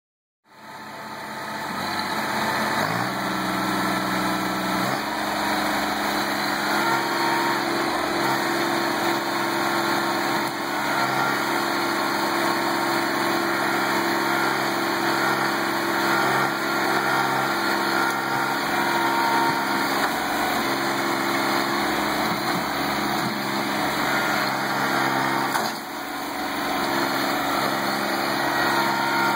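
Kubota B7510 compact tractor's three-cylinder diesel engine running under load as the front loader digs out a bush. Engine speed rises about three seconds in, and the sound dips briefly near the end.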